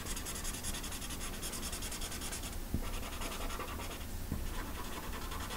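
Marker tip scrubbing back and forth on paper in quick strokes, colouring in a drawing, with two brief pauses.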